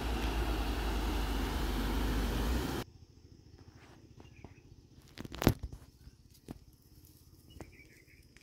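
A loud, steady outdoor rumble and hiss that cuts off abruptly about three seconds in. Quiet open-air surroundings follow, with a few soft clicks, one sharp click about halfway, and faint short chirps.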